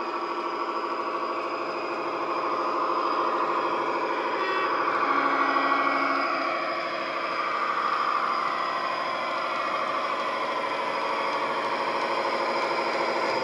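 Diesel engine sound from a LokSound DCC sound decoder in a model Class 41 Warship locomotive, played through its small onboard speaker as the model runs. The engine note drones steadily, its pitch sliding down and back up in places as the throttle changes.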